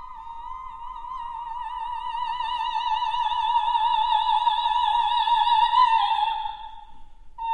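Elderly operatic soprano holding one long high note with a marked vibrato, swelling steadily louder before breaking off near the end. Her voice is shown as ruined with age.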